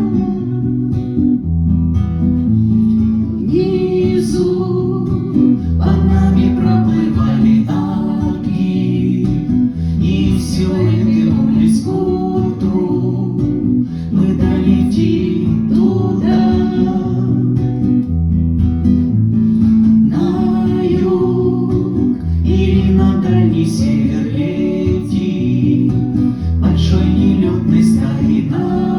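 Music: an instrumental passage of a song led by acoustic guitar, with a bass line under the chords.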